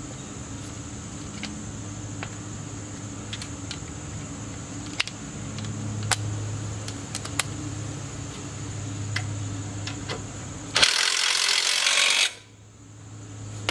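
Hand tools clicking and clanking at scattered moments against a steady machine hum, as a rear shock absorber is bolted back in. About eleven seconds in comes a loud rushing hiss lasting about a second and a half.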